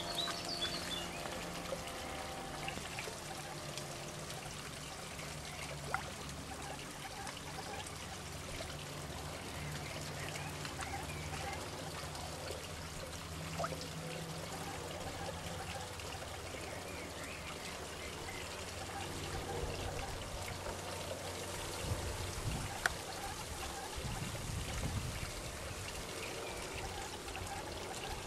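Water trickling steadily into a garden pond, with a few soft clicks.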